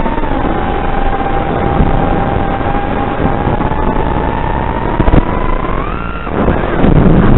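FPV quadcopter's electric motors and propellers whining at a fairly steady pitch over heavy wind rush. About six seconds in the pitch rises sharply as throttle is punched, then it drops away into rougher, lower noise.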